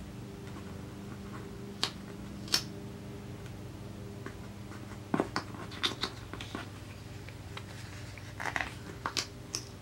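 Scattered light clicks, taps and paper rustles from handling a sticker and planner pages: a couple of sharp ticks early, then a busier run of small clicks and crinkles in the second half, over a steady low hum.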